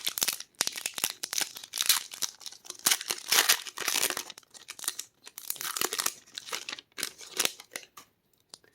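A foil Magic: The Gathering collector booster pack wrapper being torn open and crinkled: a run of irregular crackling tears and crinkles that thins out near the end.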